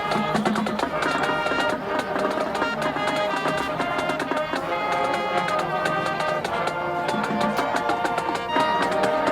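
High school marching band playing a tune, with many held notes sounding together.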